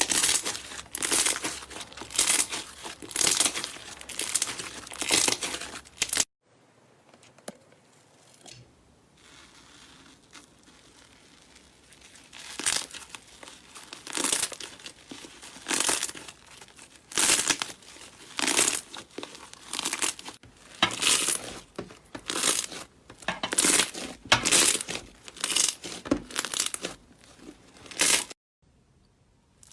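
Slime being squeezed and worked by hand, giving repeated crackly, crinkling squishes roughly once a second. The squishes drop away about six seconds in, stay faint for several seconds, then start again. They cut off briefly near the end.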